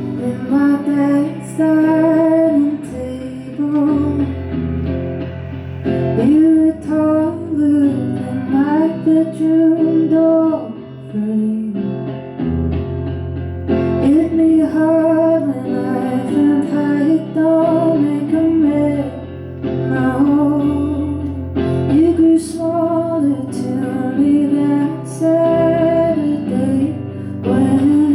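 Live solo performance: a woman singing to her own guitar.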